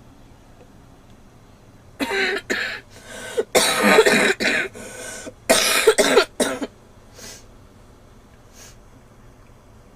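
A girl coughing: a fit of about eight sharp, loud coughs in quick succession, starting about two seconds in and lasting about five seconds.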